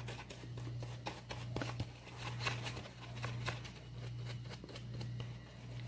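Paintbrush dabbing and scrubbing paint onto a cardboard egg carton: many small, irregular scratchy taps, over a steady low hum.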